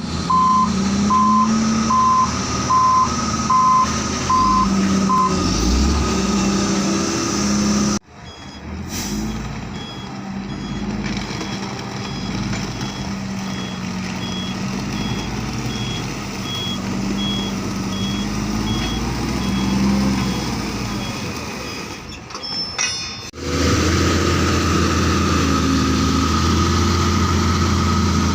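Heavy diesel earth-moving machines running. In the first part a reversing alarm beeps about one and a half times a second and stops about five seconds in. Further on, a fainter, higher-pitched backup beeper repeats under the engine, then a loud, steady engine takes over near the end.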